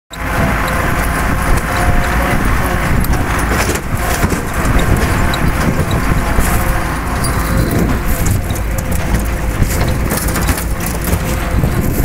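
Belarus tractor's diesel engine running as the tractor drives along, with a constant clatter of knocks and rattles from the body and rear hitch.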